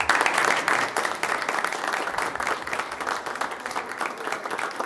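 Audience applauding: many people clapping together at a steady pace, fading slightly toward the end.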